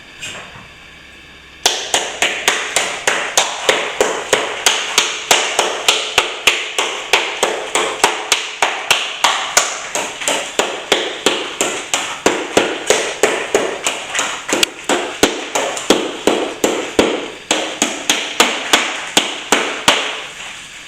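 Repeated sharp tapping strikes, about three a second, starting suddenly a second and a half in and running at an even pace until stopping just before the end.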